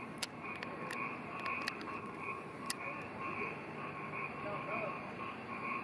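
Steady chorus of pulsing animal calls, repeating a couple of times a second, over faint background voices and a few light clicks.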